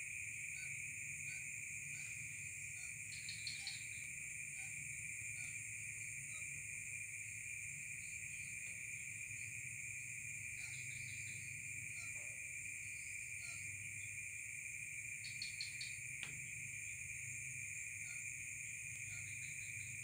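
Night insect chorus: a steady, shrill, high-pitched trilling in two unbroken layers, with short chirps repeating about every half second and a brief burst of clicky calls twice. A low steady hum runs underneath.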